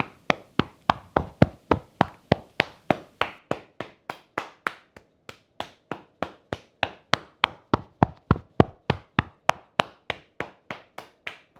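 A hand tapping along the length of the other arm: a steady run of quick pats, three to four a second, with a brief pause about halfway.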